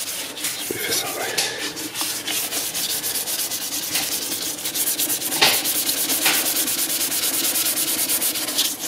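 Wet-and-dry abrasive paper rubbed by hand over a Honda Civic FN2 Type R's tail-light lens in quick, steady back-and-forth strokes. The paper scuffs the lens to give the tint spray a key to stick to.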